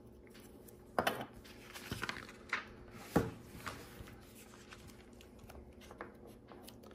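Plastic Lego Technic parts being handled: a few sharp clicks and clacks in the first three seconds, the loudest, with a dull knock, about three seconds in as the assembled frame is set down on the table. After that only faint small taps.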